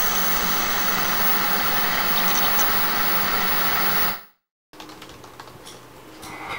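TV static: a steady, even hiss of white noise with a faint low hum, cutting off suddenly about four seconds in. Quiet room tone follows.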